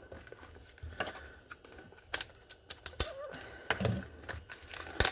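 Irregular clicks and taps from fingers handling a cardboard trading-card box with a plastic window, working at its top flap.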